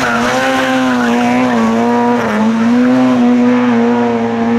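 Lada estate rally car's four-cylinder engine revving hard, held at a high, steady pitch with a brief dip about halfway through, as the car slides through a bend with some tyre squeal.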